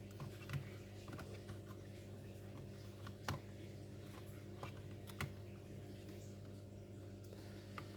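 Scattered light clicks and taps of small laptop parts being handled during an SSD install, with three louder clicks: near the start, a bit before halfway, and past the middle. A steady low electrical hum runs underneath.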